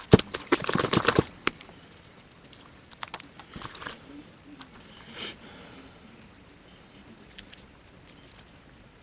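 Hands working slime-making materials: a quick flurry of sharp clicks and slaps in the first second or so, then scattered clicks and a soft brushing sound about five seconds in.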